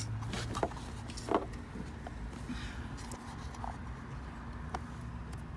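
A few light clicks and taps of hand tools and small shifter parts being handled during disassembly, over a low steady hum.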